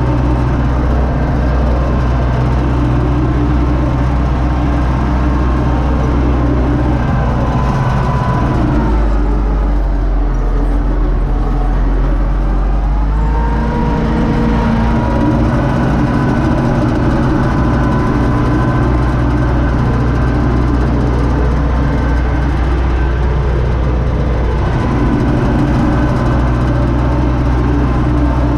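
U650 tractor's four-cylinder diesel engine running steadily under way, heard from inside the cab. For a few seconds about a third of the way in the engine note drops, then it picks up again.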